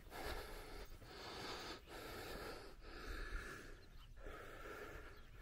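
A man's faint breathing close to the microphone, one breath roughly every second.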